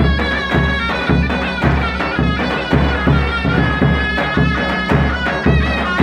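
Bar dance music: a loud, reedy wind melody over a steady drum beat.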